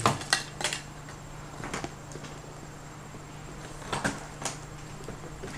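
Scattered knocks and rustles of packaging and parts being handled while items are taken out of a box, several close together at the start, then one, then two more near the end.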